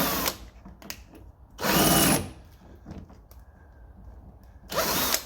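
Power drill driving an M8 thread tap, run in short bursts of about half a second: once just at the start, once around two seconds in and once near the end. The drill's chuck is failing to grip the tap.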